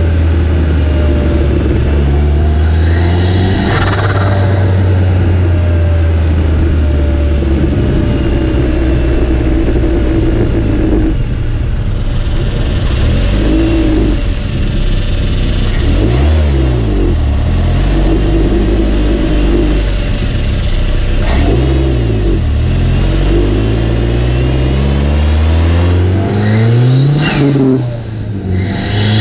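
Turbocharged Mazda MX-5 NC 1.8-litre four-cylinder engine, heard from beside the turbocharger and intake, accelerating through the gears; its note climbs and drops several times. Near the end a high rising whine comes in as the turbo spools, followed by a brief dip in loudness.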